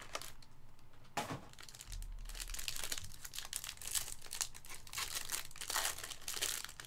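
A clear plastic wrapper crinkling in the hands, then a sealed foil trading-card pack being torn open, with a light knock of the box being handled about a second in.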